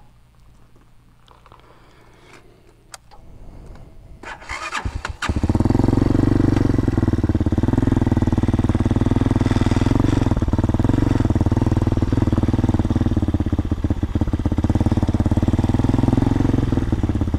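Hawk DLX 250's fuel-injected single-cylinder engine is started about five seconds in, after a brief crank, then runs steadily.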